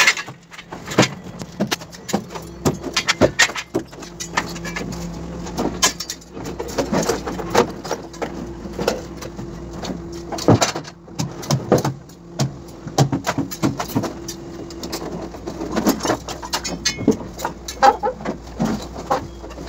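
Irregular knocks and clatters of wall formwork being stripped: metal clamps and plywood panels being knocked loose and handled against scaffolding, over a steady machine hum.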